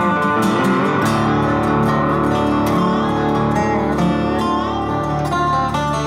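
Background music: guitar-led instrumental with plucked, strummed acoustic guitar.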